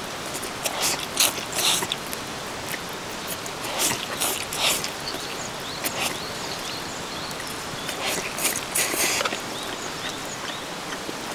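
A person slurping up spaghetti in meat sauce, in three bursts of slurping about one, four and eight seconds in.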